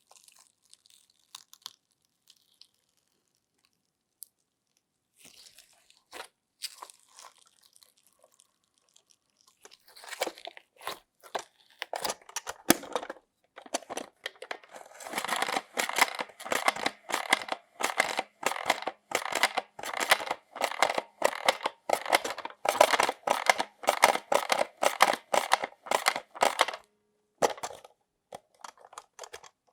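Slime being squeezed and poked by hand, making sticky crackling and popping sounds. A few scattered pops come first, then from about halfway a fast, steady run of crackles that stops shortly before the end.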